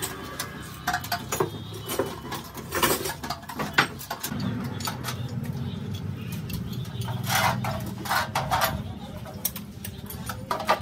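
Metal parts and hand tools clinking and knocking in irregular strokes, with a few short ringing scrapes, over a steady low hum that grows louder about four seconds in.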